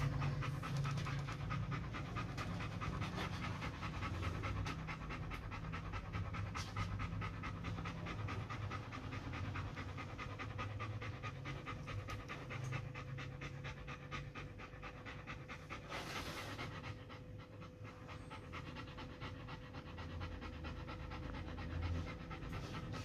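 A dog panting steadily and rhythmically throughout.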